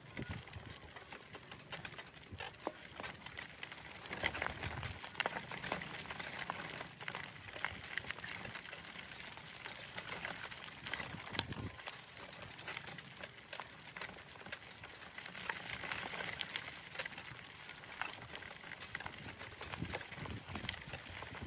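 Wheels rolling over a rough gravel dirt road: a steady crackle of small stones crunching and popping under the tyres.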